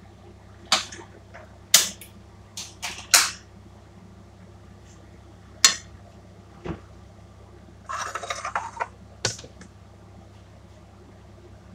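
Cookware handled at a gas stove: several sharp clanks of steel pots in the first few seconds and another about halfway through, then about a second of rustling and a single knock as a plate is set down on the counter.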